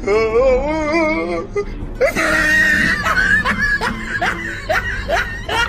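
Comic background music: a warbling, wavering tone for the first second and a half, then a busy tune with short rising notes about twice a second.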